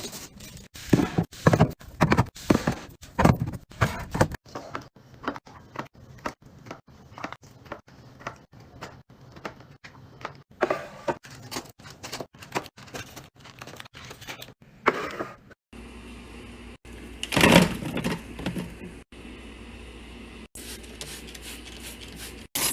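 Items being handled while restocking and organizing: a quick series of knocks, clicks and clatters as containers, bottles and packaging are picked up and set down, with a louder clatter a little past the middle.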